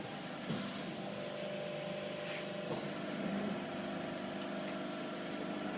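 Hydraulic press brake's pump and motor running with a steady hum, with short knocks about half a second in and again just before the three-second mark.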